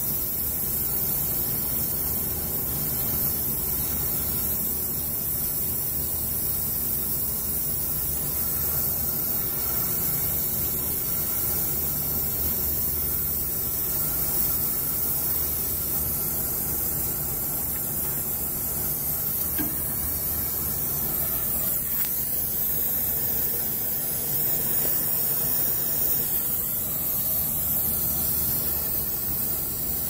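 Steady hiss over a low, even hum of running HVAC equipment.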